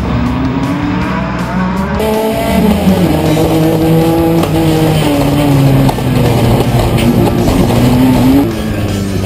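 Race car engine pulling hard on a dirt track, its pitch climbing and then dropping at each upshift, several times, with other race cars' engines around it at the start of the race.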